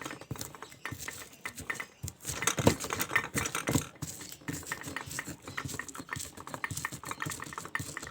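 Garlic being prepared for a spice paste with kitchen utensils: rapid, irregular small clicks and taps, with heavier knocks between about two and four seconds in.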